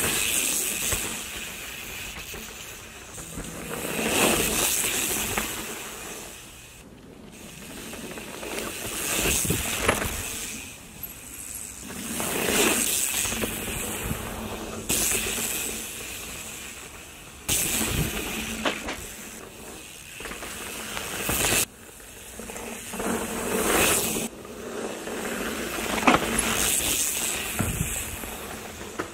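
Mountain bike tyres rushing over a loose dirt trail as the bike passes close by, the noise swelling and fading every few seconds, with a few abrupt cuts between passes.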